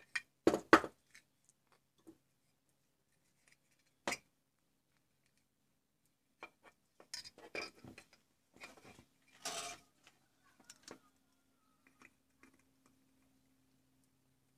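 Clicks and knocks of a small mains transformer's laminated steel core and a plastic charger case being handled and set down on a workbench: two loud knocks about half a second in, another sharp one around four seconds, then a cluster of smaller taps and rattles.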